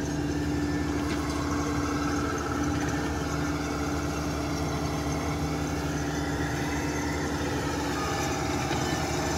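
Kubota crawler combine harvester's diesel engine running steadily as the machine creeps along on its tracks, with a steady mechanical whine over the engine note.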